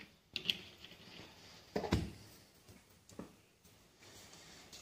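Cooking oil poured into an empty pan, with a few soft knocks and handling sounds. The loudest is a low thump about two seconds in.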